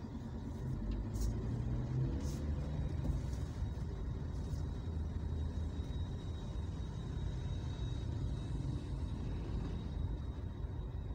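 Steady low rumble of a vehicle driving along a city street in traffic: engine and road noise.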